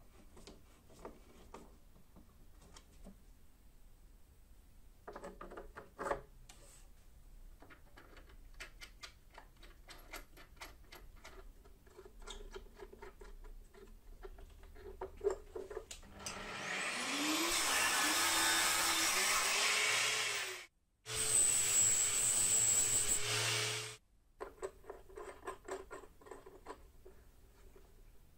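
Light metal clicks and taps of hardware being threaded by hand into plywood, then a small electric power tool running in two bursts of about four and three seconds, its pitch rising as it spins up at the start of the first.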